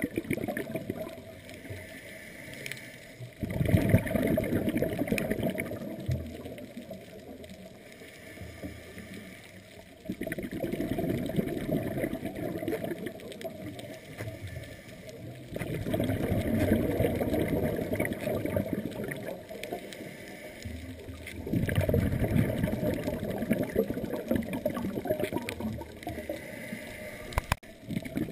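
Scuba diver breathing through a regulator underwater: muffled gurgling surges of exhaled bubbles, each a few seconds long, coming about every six seconds with quieter inhalations between.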